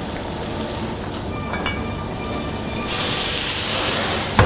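Red capsicum and onion frying in a pan on a gas range. About three seconds in, white wine hits the hot pan and the sizzle jumps to a loud, steady hiss as the pan flares up. A sharp knock comes just before the end.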